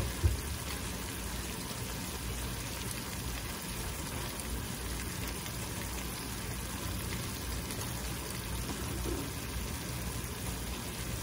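Chopped ground beef with onions and melted cheese sizzling steadily in a skillet. Two short knocks right at the start.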